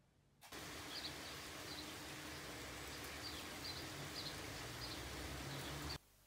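Sparrows chirping in short, scattered high chirps over a steady outdoor background hiss. The sound starts suddenly about half a second in and cuts off just before the end.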